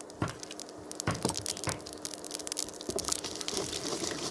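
Mustard seeds crackling and popping in hot mustard oil in a pan as a tadka (tempering): irregular sharp pops that thicken into a denser sizzle after about two seconds.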